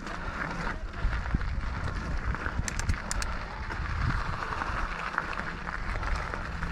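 Bronson mountain bike being ridden up a dirt trail climb: a steady low rumble of tyres and wind on the camera microphone, with rattles and a few sharp clicks a little under three seconds in.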